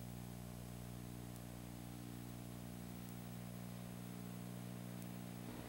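Dead air: only a faint, steady electrical hum with a soft hiss.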